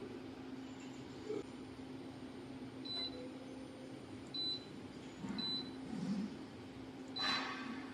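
Four short, high electronic beeps, spaced unevenly, over a steady low hum, with a brief rustling burst near the end.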